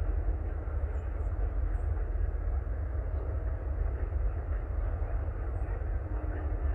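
Distant rail yard ambience: a steady low rumble of diesel locomotives at work, with no distinct bangs or squeals standing out.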